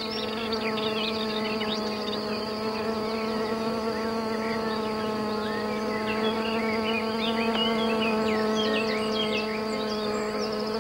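Bee fly (Bombylius) hovering while it feeds, its wings giving a steady, even-pitched buzz. Short high chirping notes are scattered over it, more of them in the second half.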